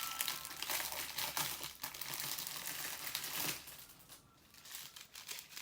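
Small plastic bead bags crinkling as they are handled, with dense crackling for about three and a half seconds, then fading to a few light rustles near the end.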